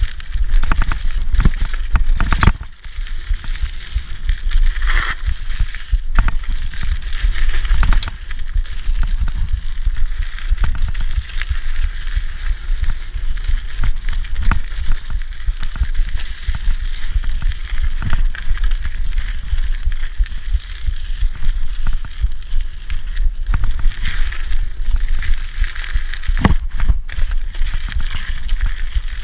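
Riding noise from a rigid 1990 Peugeot Hurricane mountain bike on dry dirt singletrack: the crunch and hiss of Michelin Wild Gripper tyres rolling over dirt and leaf litter, frequent sharp knocks and rattles as the unsuspended bike bounces over roots and bumps, and a heavy wind rumble on the microphone from the speed.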